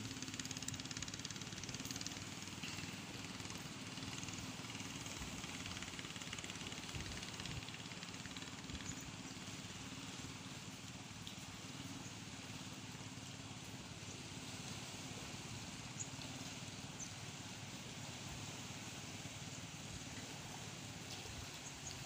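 Steady outdoor ambience by a calm sea: an even wash of noise with a faint, low, steady hum under it.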